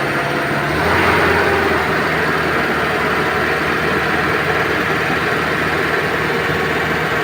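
Isuzu Trooper's 3.1-litre turbo diesel engine running steadily. Its note changes and gets a little louder about a second in.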